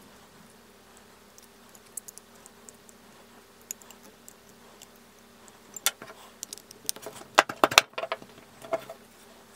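Small scattered clicks and light scraping of a metal palette knife spreading glue on a stabilized cork handle scale, then a cluster of sharp clicks about seven to eight seconds in as the pinned cork scale is handled and fitted against the steel knife tang.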